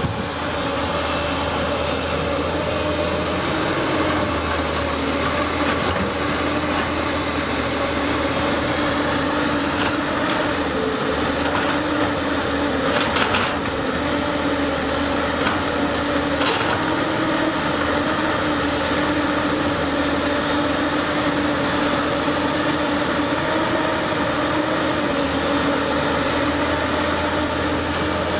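CAT 320C hydraulic excavator's diesel engine running steadily under digging load, with a constant humming tone over the rumble. Brief knocks of the bucket come about thirteen and sixteen seconds in.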